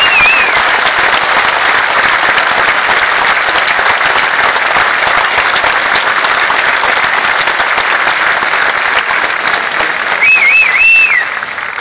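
Large concert audience applauding steadily. A high wavering whistle from the crowd sounds near the start and again near the end, and the applause begins to die away at the very end.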